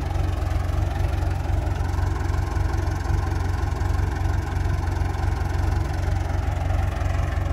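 Massey Ferguson 285 tractor's diesel engine idling steadily with a low, even throb.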